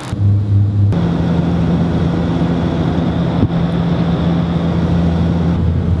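Bombardier Q400 turboprop in flight, heard from a cabin seat beside the engine: a loud, steady drone of the engine and propeller with two even low tones. About a second in, a shorter, lower engine hum gives way to this drone.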